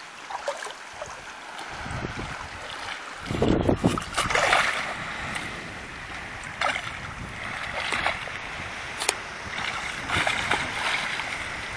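Splashing in shallow water as a hooked permit thrashes at the surface and is grabbed by hand, in several short splashes, with gusts of wind buffeting the microphone.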